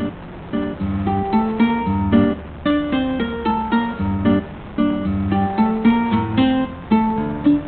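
Background music: plucked guitar notes played in a steady rhythm.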